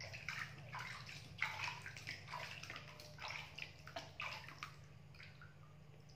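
Water splashing and sloshing in a small plastic baby bathtub as hands wash a baby monkey, in irregular splashes that thin out and stop about five seconds in. A steady low hum runs underneath.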